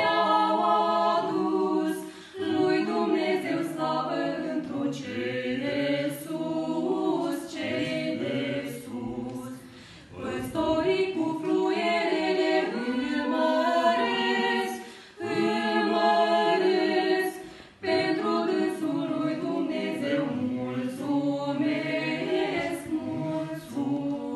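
A small mixed vocal group, one man and three women, singing a Romanian-language Christmas carol (colind) a cappella, in sung phrases with short breaks for breath between them.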